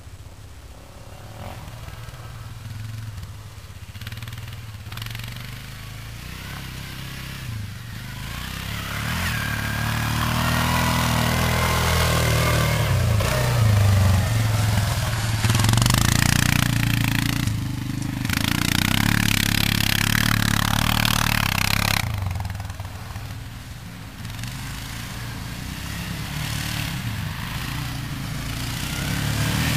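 ATV (quad bike) engine revving under load as it climbs and slides across a loose sand slope. It grows louder from about a quarter of the way in, is loudest around the middle along with a hiss from the wheels spraying sand, drops off sharply about three quarters through, then builds again near the end.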